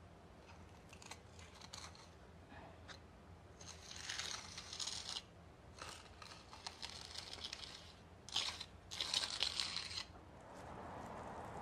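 Hand work at a wooden door sill: short scratchy scrapes, then two louder rasping, tearing-like stretches about four and nine seconds in.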